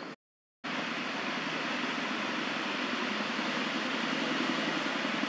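Steady outdoor background noise, a low rumble under a wide hiss, with no clear animal calls; the sound drops out completely for about half a second just after the start at a cut in the footage.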